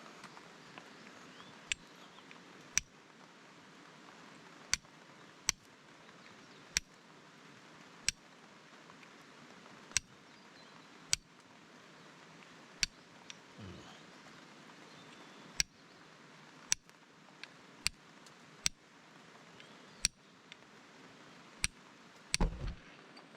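Wood fire in a fire pit crackling, with sharp single pops at irregular intervals of a second or two over a steady hiss, and two duller thumps, the louder one near the end.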